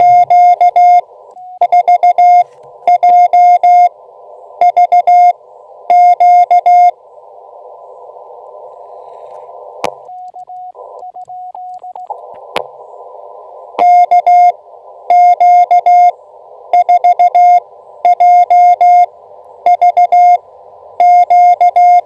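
Morse code sidetone from an Elecraft KX2 transceiver keyed with a Begali Traveler paddle: loud, even dits and dahs on one high tone, sent in short groups as the operator calls CQ. The sending stops about seven seconds in, leaving the receiver's narrow-filtered band hiss with a fainter single tone and two sharp clicks, then resumes about fourteen seconds in.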